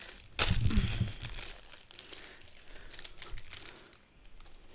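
Plastic packaging crinkling as it is handled, with a loud rustle and bump about half a second in, then lighter, scattered crinkles that die down near the end.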